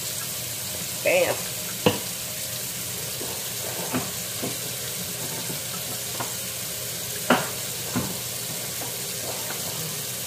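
Shrimp sizzling steadily on a hot electric contact grill, with a few sharp knocks spread through.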